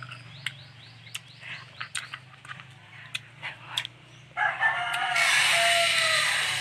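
Rooster crowing: one long cock-a-doodle-doo starting a little past halfway through, the loudest sound. Before it come scattered faint clicks and short high chirps.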